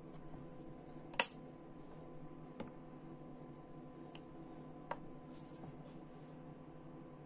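A few sharp taps and clicks of small objects being handled on a wooden tabletop: one loud click about a second in, then two fainter ones, over a faint steady hum.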